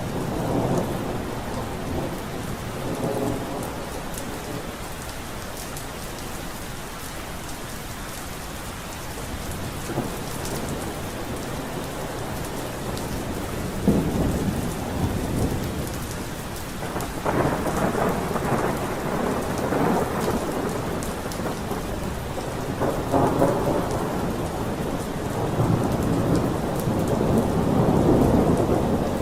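Steady rain with thunder rolling in several long swells, one opening with a sharp crack about halfway through and another building near the end.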